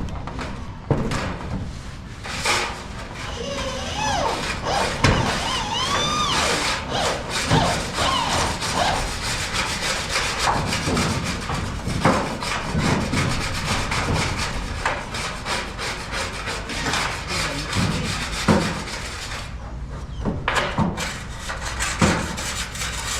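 Hand tools at work on a building site: repeated rasping, sawing-like strokes with scattered sharp knocks, and a few brief squeals in the first several seconds.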